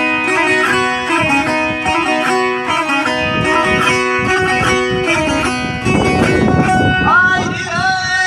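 Azerbaijani saz, a long-necked plucked lute, playing a fast run of plucked notes in an ashiq melody. A voice comes in near the end.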